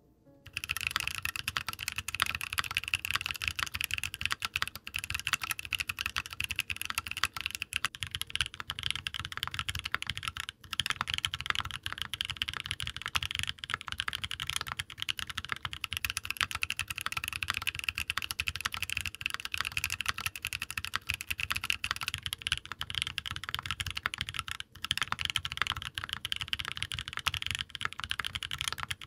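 Fast continuous typing on a Voice65 aluminium-plate mechanical keyboard with HUANO White Blue SE tactile switches and GMK keycaps: a dense stream of keystroke clacks. The switches are heard stock at first, then lubed, with a brief break in between.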